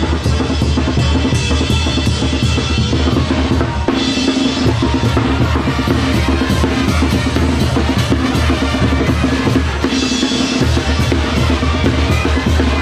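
Mexican brass band (banda) playing live on the march. Bass drums with mounted cymbals and snare drums beat under sousaphones, trumpets and clarinets. The horns hold long chords at times.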